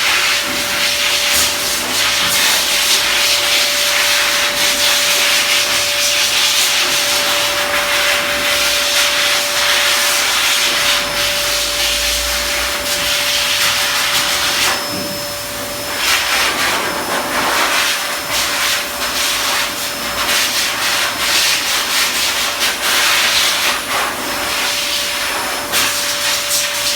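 Pet-grooming blow dryer running: a loud rush of air over a steady hum, the air noise wavering and dipping briefly about halfway through.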